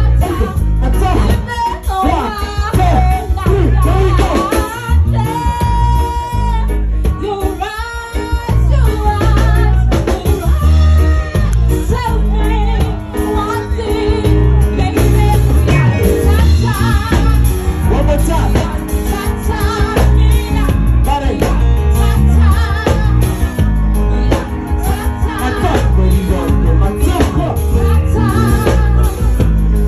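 Live band music: a woman sings lead into a microphone over keyboard, drum kit and bass guitar, with a heavy, steady bass.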